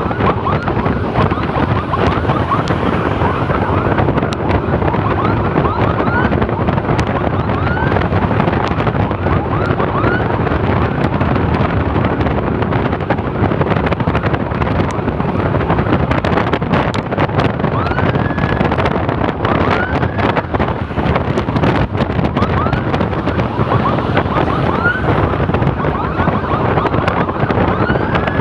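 Emergency siren sounding in short rising whoops, repeated irregularly, over heavy wind noise on the microphone and the steady noise of a moving vehicle.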